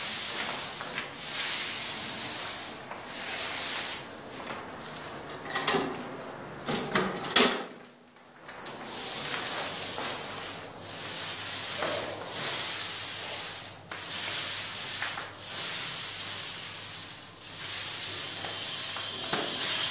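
Paint roller on an extension pole rolling thinned wall paint onto a wall in repeated strokes, a swishing rub swelling and fading about every two seconds. A short cluster of louder, sharper sounds comes about seven seconds in, followed by a brief pause.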